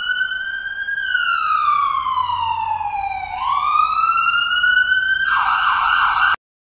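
Emergency vehicle siren wailing: one slow fall in pitch, then a quicker rise back up. It turns rougher near the end and cuts off suddenly.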